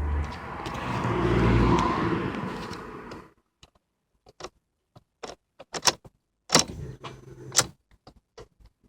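Engine cranking on its electric starter without catching, winding down and stopping about three seconds in. Then a run of separate clicks and knocks, a few of them loud.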